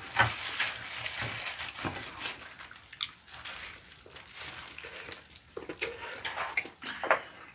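Wet squishing and tearing as a hand in a thin plastic glove pulls meat off a boiled whole chicken, with crinkling from the glove and chewing. The sounds come as irregular short scrapes and clicks, loudest in the first couple of seconds.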